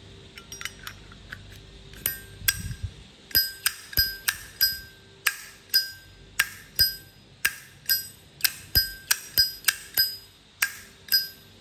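Zippo lighter lid flicked open and snapped shut over and over. Each strike gives a sharp clink and a clear ringing chime, the lighter's bell tone. A few light clicks come first, then from about two seconds in the clinks come about twice a second.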